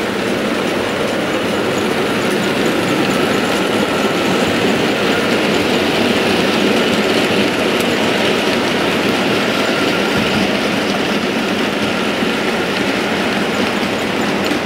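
00 gauge model goods train of vans running past on the layout's track: a steady rumble of wheels on rails and the locomotive's motor, a little louder in the middle as the vans pass closest.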